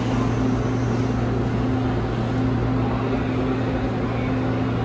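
Line 1 electric subway train standing at the platform, its onboard equipment giving a steady low hum with a second, higher hum wavering slightly above it, over general platform noise.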